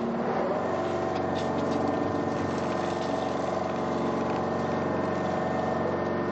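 A boat's engine running at a steady drone, even in level and pitch throughout.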